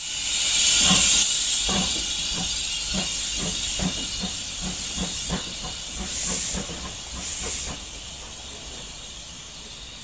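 Steam locomotive hissing loudly with steam escaping low at the front, as from open cylinder drain cocks, while a regular chuff-like beat of about two a second quickens slightly. Two more puffs of hiss come late on before the sound eases off.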